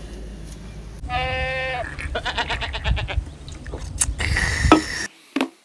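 A high voice holds one long, bleat-like note, then quick pulsing laughter follows, with a burst of noise about four seconds in: people whooping and laughing in high spirits.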